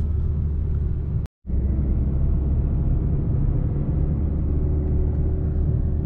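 Steady low engine and road rumble inside a moving car. The sound drops out completely for a split second about a second and a half in.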